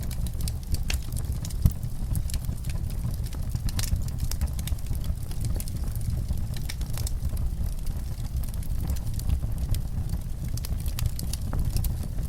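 Wood fire crackling in a fireplace: frequent sharp pops and snaps over a steady low rumble of the flames.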